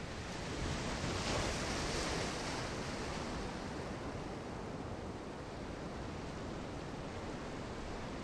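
Sea waves washing onto the shore, one surge swelling and fading about a second in, then a steady rushing wash.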